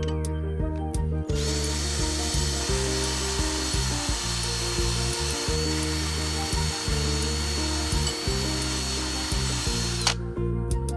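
Power tool running steadily with a high whine, starting about a second in and cutting off sharply near the end, over background music.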